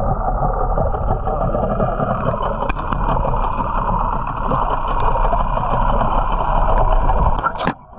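Muffled, steady rushing and churning of water picked up by a camera held underwater. It ends with a sharp knock near the end, and then the level falls away.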